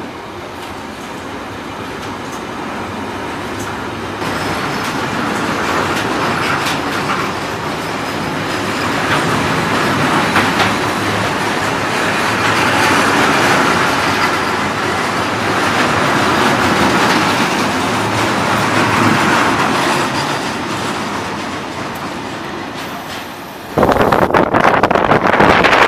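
Freight train of cereal hopper wagons rolling past close by: a steady rumble and clatter of wheels on the rails that swells towards the middle. About two seconds before the end it cuts abruptly to a louder rush with wind buffeting the microphone.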